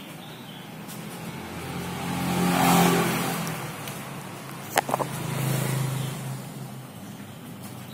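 A motor vehicle engine passes by, rising to a peak about three seconds in and fading. A quick cluster of sharp clicks comes near five seconds, followed by a second, lower engine swell that dies away.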